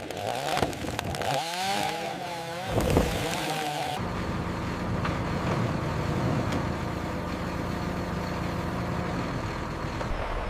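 Chainsaw revving up and down for about three seconds, then a sudden change to a heavy engine running at a steady pitch.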